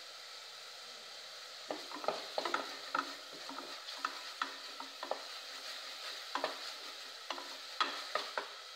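Masala paste of onion, garlic, ginger and tomato frying in oil in a metal pot, with a steady sizzle. From about two seconds in, a wooden spatula stirs it, knocking and scraping against the pot in quick irregular strokes.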